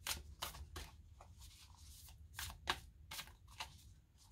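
Deck of oracle cards shuffled by hand: soft, irregular flicks and slaps as the cards slide against each other, a quick run of them at the start and another after a pause of about a second.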